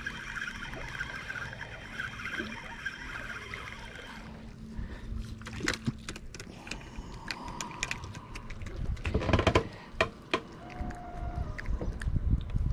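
Spinning reel whirring steadily for about four seconds as line is wound in, then splashing and a run of sharp knocks and clicks as a small fish is lifted out of the water and swung aboard the boat.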